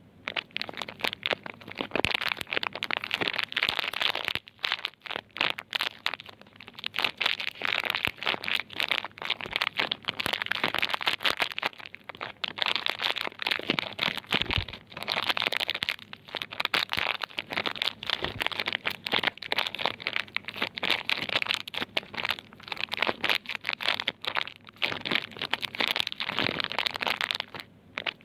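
Plastic soap packaging crinkling and crackling as it is handled, in long runs of dense crackles broken by short lulls.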